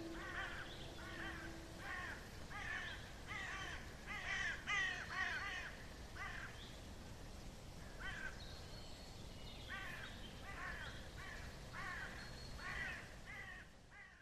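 Crows cawing, a long run of short harsh calls that pauses briefly partway through, then resumes and fades out at the end.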